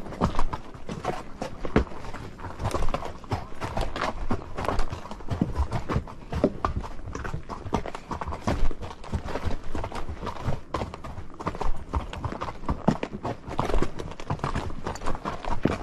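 Horses' hooves clip-clopping along a trail: an irregular run of knocks, several a second.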